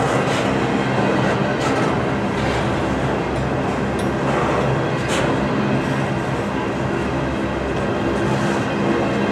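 Freight train rolling past: a steady rumble and rattle of steel wheels on the rails, with a few sharp clanks scattered through it.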